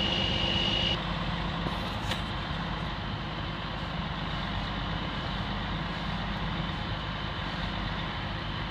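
Heavy truck's diesel engine running steadily, with a high, steady whine over it that drops away about a second in.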